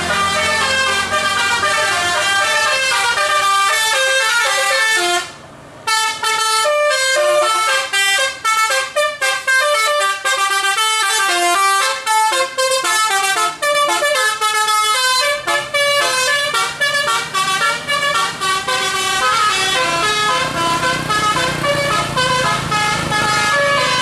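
Bus 'telolet' musical air horn playing a fast tune of stepped notes, with a brief break about five seconds in. A low engine drone sits underneath in the second half.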